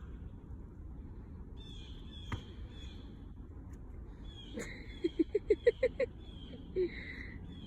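Birds calling in woodland over a low outdoor rumble, with repeated short high calls and, about five seconds in, a quick run of about seven loud calls.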